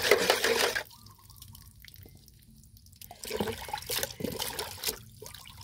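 A small handheld motorised spiral whisk whirring as it churns a bucket of liquid fertiliser mix, stopping about a second in. Water then splashes and drips for a couple of seconds.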